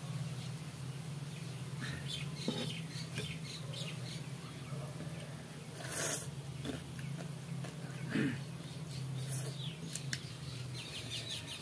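People eating a rice-and-curry meal with their hands: chewing, lip smacking and the squish of rice being mixed, with a few light clicks, over a steady low hum.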